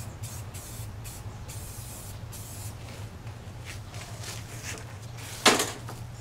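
Aerosol spray-paint can hissing in short, repeated bursts as red paint goes onto a lawnmower deck, with a louder knock about five and a half seconds in as the mower is tipped up on its end.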